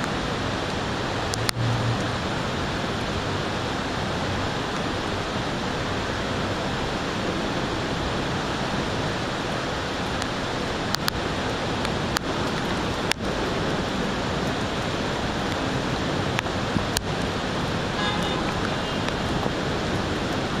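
Steady hiss of storm rain and wind, with a few sharp clicks scattered through it.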